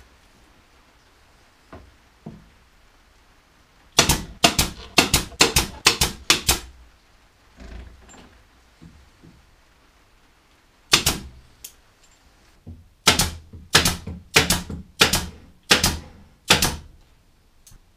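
Air-powered pin nailer firing pins into plywood: two quick runs of sharp shots, about three a second, with a single shot between them.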